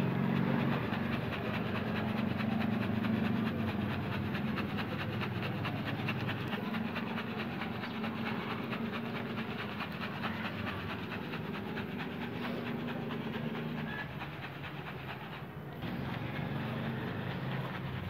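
Crushed ice and salt rattling steadily inside a cloth-wrapped ziploc bag as it is shaken to freeze the milk into ice cream, over a low steady hum.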